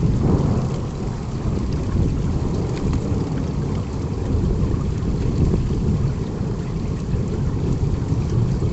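Thunder rumbling through steady rain, loudest as it swells at the start and then rolling on as a low, continuous rumble.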